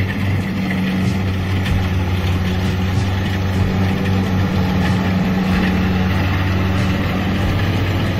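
Kubota DC-70 combine harvester's diesel engine and threshing machinery running steadily under load while cutting rice, a loud, even mechanical hum.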